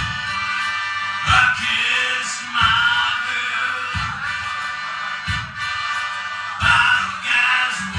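Live accordion playing with a voice singing over it, and a low beat thumping about every second and a third.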